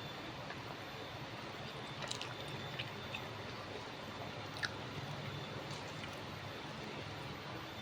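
Close-up eating sounds of a mouthful of nasi padang being chewed, with a few sharp wet mouth clicks, over a steady background hiss.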